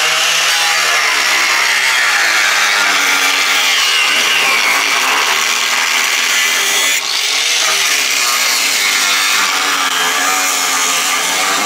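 Angle grinder with a cut-off disc cutting through a pickup bed's sheet-metal wheel tub, running steadily under load with a brief dip about seven seconds in.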